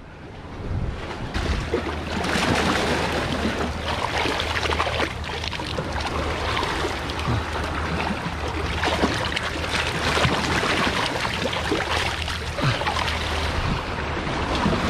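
Seawater sloshing and splashing in the gaps between jetty boulders, over a steady low rumble of wind on the microphone. The water noise swells up about a second and a half in and stays up.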